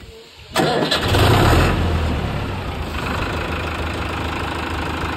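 Kartar tractor's diesel engine starting: it fires about half a second in, runs loudest for about a second, then settles into a steady idle.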